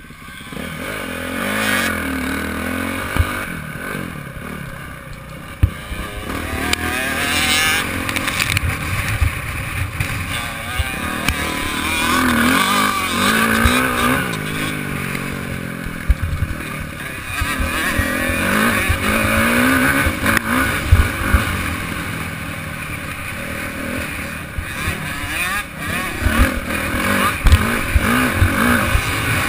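Yamaha YZ motocross bike's engine heard from on board, revving up and easing off over and over as it is ridden around a dirt track, with scattered sharp knocks.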